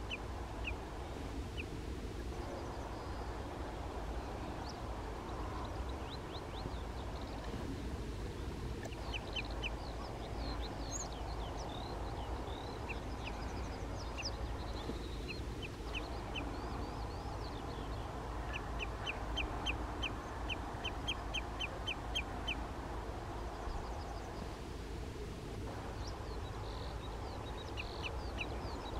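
Common redshank calling in runs of short, sharp, evenly spaced notes, the longest run lasting about four seconds at three or four notes a second, over a steady low background rumble.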